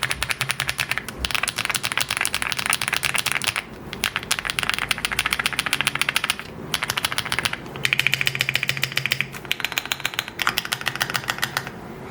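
Fast typing on an AULA F75 mechanical keyboard with pre-lubed HMX Latte linear switches and metal keycaps: rapid, dense keystroke clacks in runs, broken by short pauses about four, six and a half, and seven and a half seconds in.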